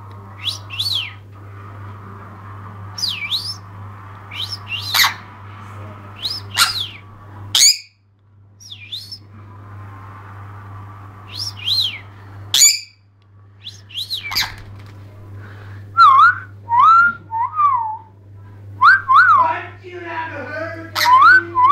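Jenday conure giving short, sharp chirps and squawks that slide steeply in pitch, scattered through. Over the last six seconds come repeated whistled notes that rise and fall, about two a second. A steady hiss with a low hum underneath runs until about thirteen seconds in.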